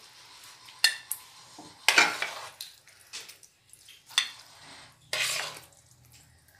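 Metal serving spoon scraping and clinking against a metal cooking pot as thick cooked daal is scooped out and spooned into a glass dish. There are a few separate sharp clinks and short scrapes about a second apart, the loudest about two seconds in.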